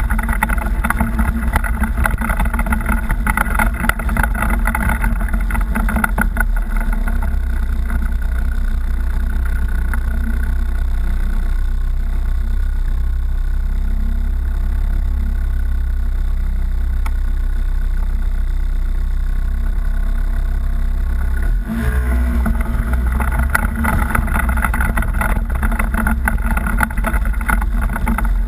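Off-road vehicle engine running steadily while driving over a rocky trail, with a brief drop about twenty-two seconds in before it picks up again.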